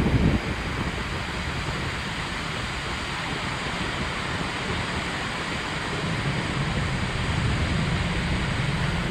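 Steady rush of wind and sea water streaming past a moving car ferry, heard on deck, with wind buffeting the microphone in low gusts at the start and again near the end.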